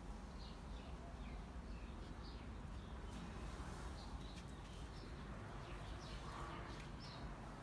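Birds chirping faintly in the background, short scattered chirps throughout, over a low steady rumble.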